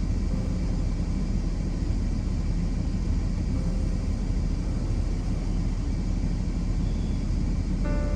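Steady low rumble of a semi-truck running on the road, with even road and engine noise.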